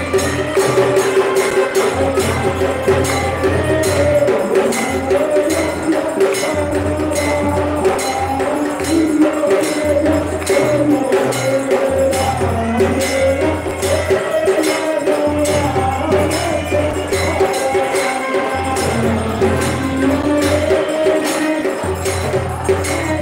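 Devotional music: wavering singing over a steady beat of jingling hand percussion, with a low pulsing drone underneath.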